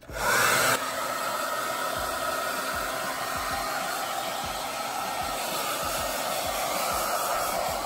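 Handheld hair dryer blowing on a wet puppy's coat. It starts suddenly, louder for the first moment, then runs steadily with a constant whine over the rush of air.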